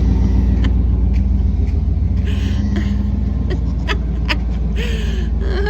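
A motor vehicle's engine idling steadily with a low rumble, with a few sharp clicks over it.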